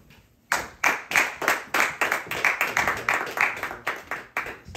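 Hands clapping in congratulation of a draft pick, about three or four claps a second. The clapping starts about half a second in and stops near the end.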